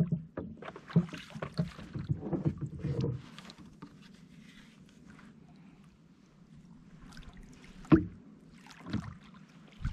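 Canoe being paddled: paddle strokes in the water with knocks of the paddle against the hull, busiest in the first few seconds. A sharp, loud knock comes about eight seconds in, with a smaller one about a second later.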